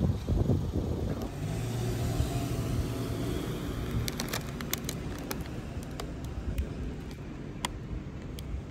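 A motor vehicle's engine running by, a low steady hum that slowly fades. Scattered sharp clicks follow in the second half.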